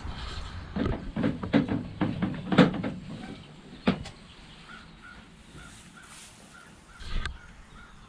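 A quick flurry of sharp knocks and clatters lasting a few seconds, then two single knocks, with faint short chirps repeating in between.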